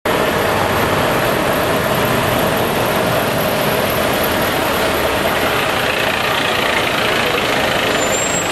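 Diesel engine of a Scania P310 fire-rescue pumper, a 310-horsepower truck, running steadily and loudly as the truck moves slowly past at low speed.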